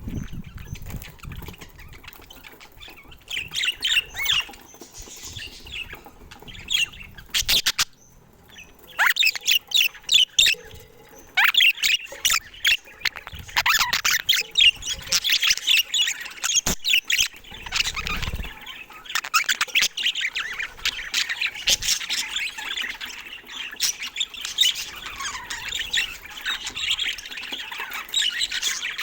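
Budgerigars chirping and chattering, a few scattered calls at first, then a dense run of rapid warbling calls from about a third of the way in, with an occasional sharp click.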